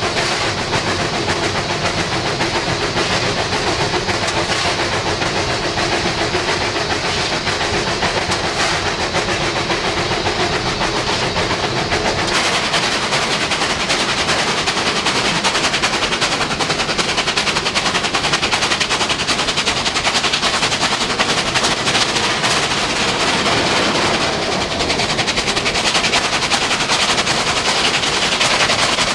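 NSW 38 class Pacific steam locomotive running at speed, heard from its footplate: a loud, continuous, rapid rattle of exhaust beats, motion and wheels on rail. The sound shifts about twelve seconds in, as the view moves from the firebox to out of the cab side.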